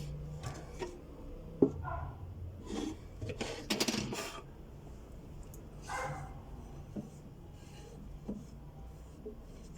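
Hand work on the parts of a sewing-machine clutch motor: scattered clicks and knocks, one sharp click about a second and a half in, and a short stretch of scraping and rubbing near the middle.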